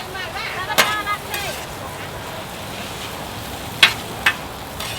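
Food frying and sizzling, a steady hiss, with three sharp clicks, one about a second in and two close together near the end.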